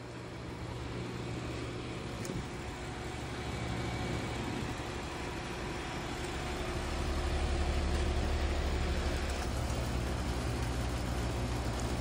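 Outdoor unit of a 2011 Bryant Evolution two-stage, 5-ton heat pump running in cooling mode: a steady low hum with the rush of the condenser fan, a little louder from about seven seconds in.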